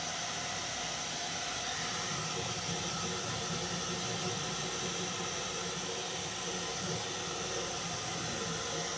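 Handheld hair dryer running steadily on freshly painted wood to dry it: a constant rush of air with a faint steady motor hum.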